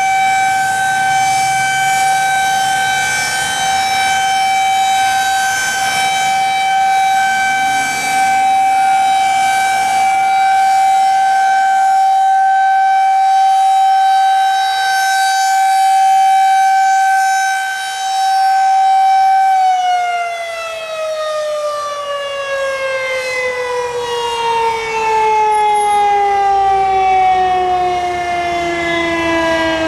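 Outdoor tornado warning siren holding a steady tone. About twenty seconds in, it begins to wind down, its pitch falling steadily.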